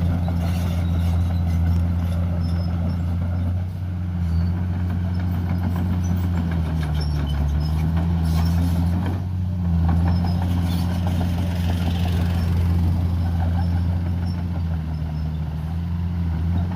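Heavy diesel engine of earthmoving equipment running steadily, with a low hum whose pitch dips slightly about halfway through and then recovers.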